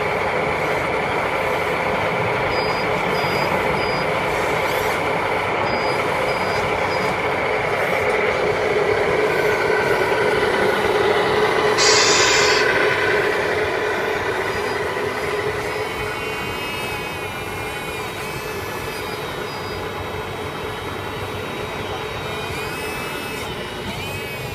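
Truck engine sound running steadily, with a sharp hiss of air like an air-brake release about halfway through and faint short high beeps in groups of three.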